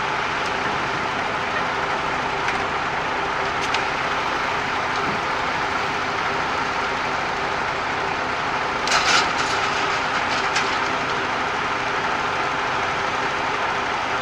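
Mercedes-Benz Actros 4141 concrete mixer truck's diesel engine running steadily, with a short noisy burst about nine seconds in.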